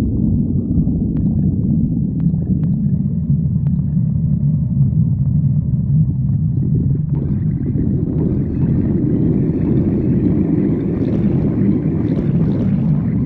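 Stomach growling: a long, continuous low rumble that spreads higher from about halfway through.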